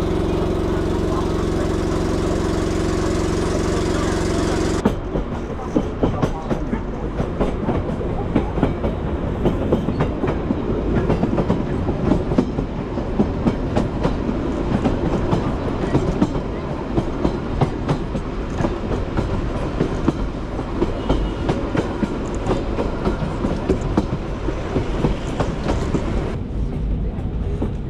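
A steady low drone for the first five seconds, then a metre-gauge train running along the track, its wheels clattering over the rails with many sharp clicks.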